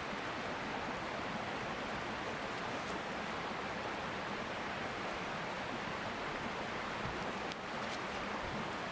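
Steady rush of a mountain stream flowing, with a couple of faint clicks near the end.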